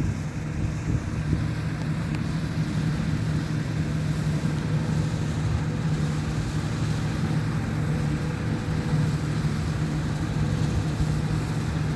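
Combine harvester's engine and machinery running with a steady, even drone while harvesting wheat.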